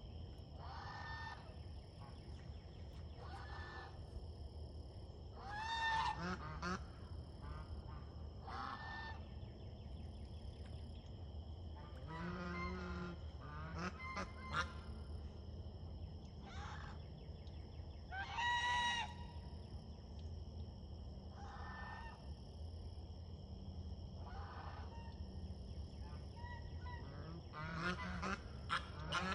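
Domestic geese honking, a string of calls every couple of seconds, with two louder honks about six and eighteen seconds in.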